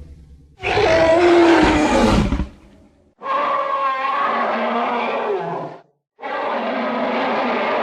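Monster or dinosaur roar sound effects, three separate calls with short silences between them. The first begins about half a second in and drops in pitch. A second, longer growling roar follows, and a third starts about a second before the end.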